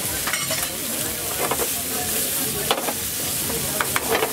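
Sliced meat and vegetables sizzling steadily in non-stick frying pans, with a few short scrapes and taps as a spatula stirs the food against the pan.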